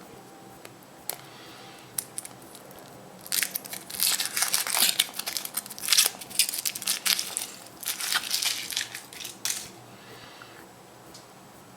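Wrapper of a chocolate surprise egg crinkling and tearing as it is peeled off by hand, in a dense run of crackly rustles lasting about six seconds, after a couple of small clicks.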